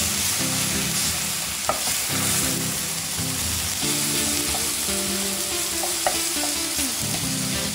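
Chicken, sliced onion, ginger and wood ear mushrooms sizzling steadily in a very hot metal frying pan as a wooden spatula stirs them. There are a few sharp clicks of the spatula against the pan, the clearest about two seconds and six seconds in.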